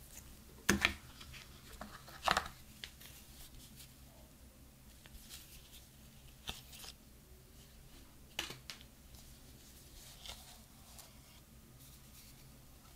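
Gloved hands handling the contents of an iPhone box: the coiled USB-C to Lightning cable is set down, then the paper documentation sleeve and its leaflets are handled. The result is a few short rustles and taps, the loudest two in the first few seconds, over a faint steady low hum.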